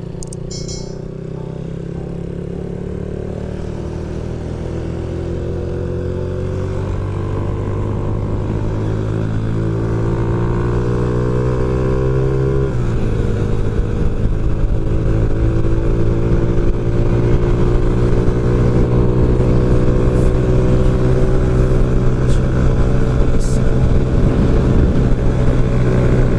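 Big-bore (63 mm) Yamaha Lagenda 110ZR two-stroke engine pulling hard at speed under the rider. Its pitch climbs slowly, dips once at a gear change about halfway, then holds high as it gets louder.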